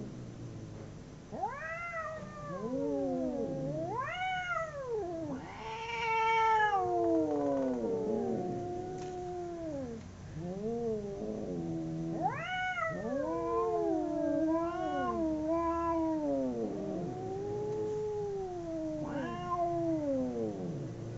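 Two cats caterwauling at each other in a fight standoff: long, drawn-out yowls that rise and fall in pitch and overlap, almost without pause.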